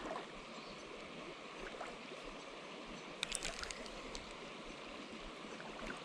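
Shallow river water running steadily, with a few faint ticks a little over three seconds in.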